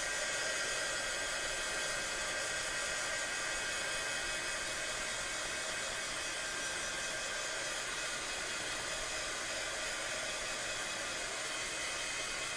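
Handheld heat gun blowing hot air, a steady rush with a faint high whine, drying fresh acrylic paint on the side of a box canvas.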